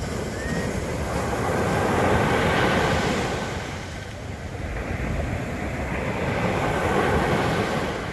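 Sea waves breaking on a beach: the surf swells and fades twice, loudest about two and a half seconds in and again around seven seconds.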